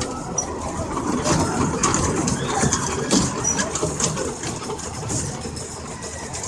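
Small kiddie train ride running past on its track with a steady mechanical rumble and many sharp clicks and clatters, loudest about one to three and a half seconds in as the cars go by.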